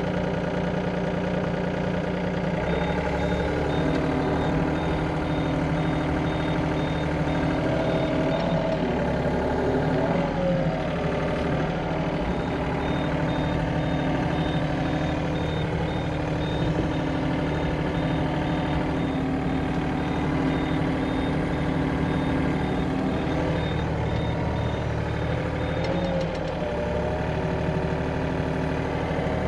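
Excavator's diesel engine running steadily while its hydraulics swing the boom with a slung load. A rapid high-pitched beeping comes in a few seconds in, pauses briefly, and returns for much of the rest.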